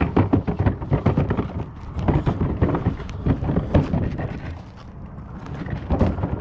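Footsteps: an irregular run of knocks and crunches over a steady low rumble, easing off for a moment past the middle.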